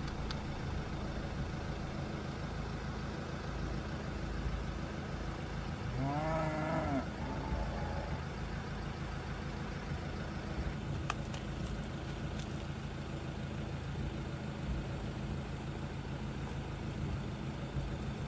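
A cow moos once about six seconds in, a short call that rises and falls in pitch, over a steady low rumble.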